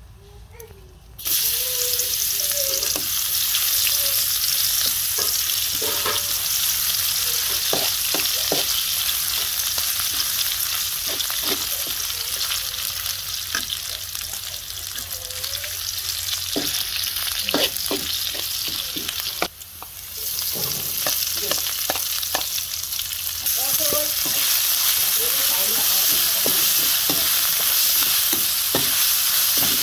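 Chopped garlic and chili frying in hot oil in a steel wok, a loud steady sizzle that starts about a second in. A metal spatula stirs them, scraping and clicking against the pan.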